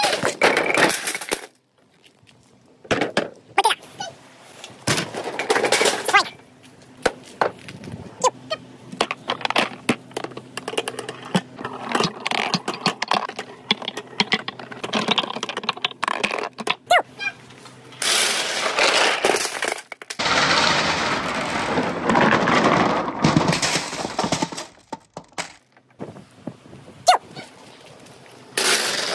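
Billiard balls and marbles rolling at speed through a bamboo-tube marble run: rapid clacking and knocking against the bamboo, with several longer stretches of rolling rumble.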